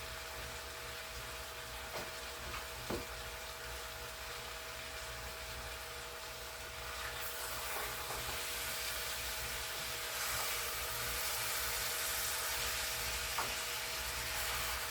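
Sweet potatoes, kielbasa sausage, onions and bell pepper sizzling in a pan on high heat as the liquid cooks off. The sizzle grows louder about seven seconds in, with a few light clicks and a steady hum underneath.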